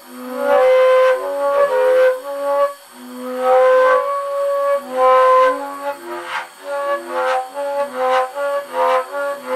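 Flute music: a melody of clear held notes, some lasting about a second, that gives way to quicker, shorter notes in the last few seconds.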